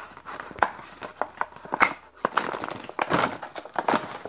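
Metal sockets and tools clicking and rattling in a plastic blister-pack socket-set tray as it is handled, with plastic crinkling, a string of short irregular clicks and knocks.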